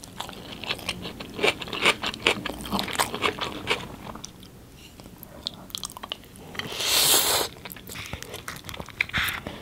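Close-miked mouth sounds of someone chewing a mouthful of spiced rice, with rapid wet smacking clicks for the first few seconds, then quieter chewing. A brief loud rustle comes about seven seconds in, and a shorter one near the end.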